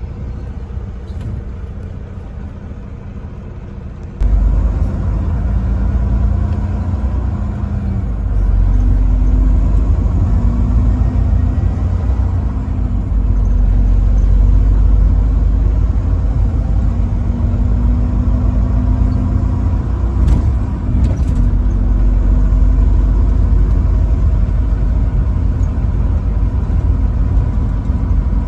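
Vehicle engine running under way, a heavy low rumble that suddenly gets louder about four seconds in, its pitch then rising and falling gently with the revs.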